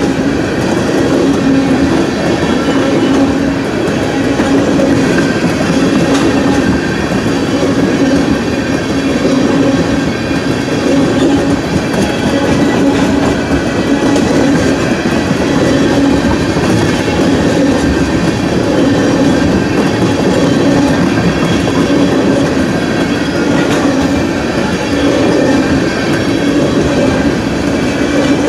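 Freight train of tank cars rolling steadily through a grade crossing: a continuous loud rumble and clatter of steel wheels on the rails.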